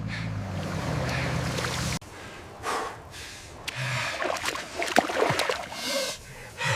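A truck engine running steadily, cutting off abruptly about two seconds in. Then mud and water sloshing, with scattered knocks and splashes.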